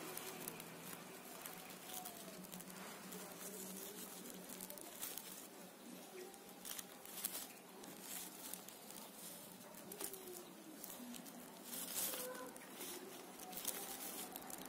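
Faint bird calls with scattered light clicks and rustles of leaves being handled close by.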